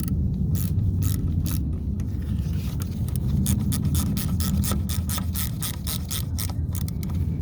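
Metal tools scraping and clicking in a quick, irregular series, densest in the middle, over a steady low rumble.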